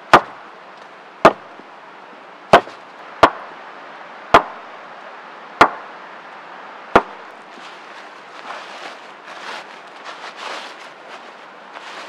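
A chunk of wood used as a mallet knocking a wooden stake into the forest floor: seven sharp wooden knocks about a second apart, then soft rustling of wet leaves and twigs being handled.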